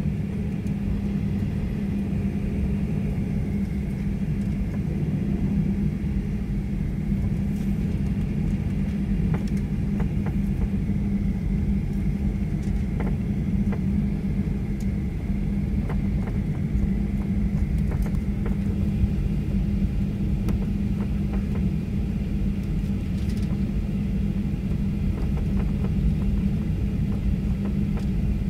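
Steady cabin rumble of a Boeing 737-900 taxiing, its CFM56 engines at low thrust, with a steady low hum, a faint high whine and a few light ticks.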